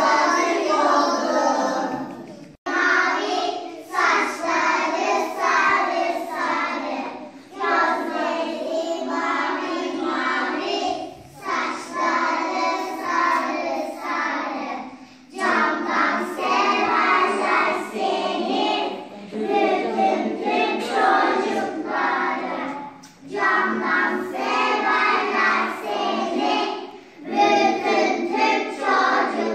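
A group of young children singing a song together as a choir, in phrases of a few seconds each broken by short pauses for breath.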